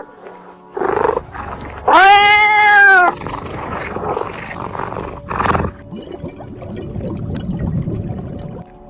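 Animal calls: a short rough call, then a loud pitched call of a little over a second that rises and falls slightly, then another short rough call, followed by lower, quieter grunting.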